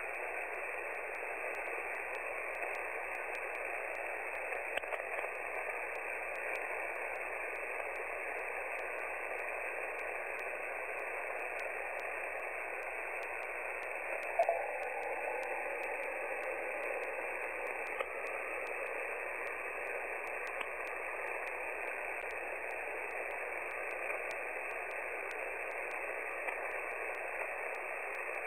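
HF amateur radio receiver on 14.325 MHz with no station transmitting: a steady hiss of static and band noise, held to the narrow single-sideband voice passband. A short pop about halfway through, with a few faint ticks.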